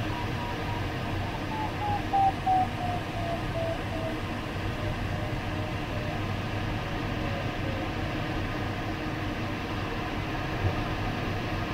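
Steady rush of airflow in a glider cockpit, with the variometer beeping in short pulses that fall in pitch over several seconds and then stop, the sign of the climb rate dropping off. Two short bumps come about two seconds in.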